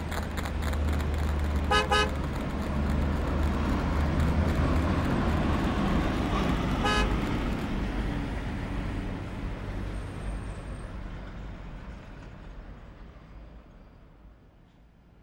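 City road traffic with a low engine rumble, and a car horn tooting: a quick double toot about two seconds in and one more toot about seven seconds in. The traffic fades out over the last several seconds.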